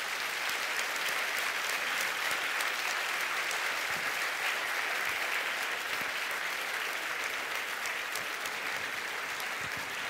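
Audience applauding: a steady wash of many hands clapping at the close of a talk.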